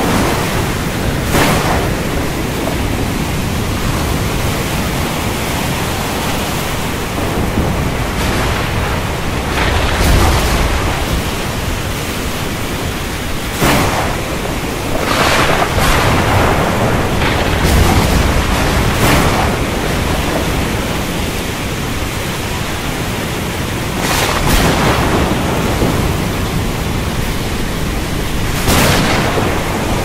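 Heavy rain falling steadily as a dense hiss, with thunder cracks and low rumbles breaking through every few seconds.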